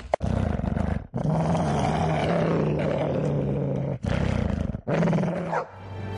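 Deep, rough growling roars of a horror-style creature sound effect, in four long stretches with short breaks between them. Music takes over near the end.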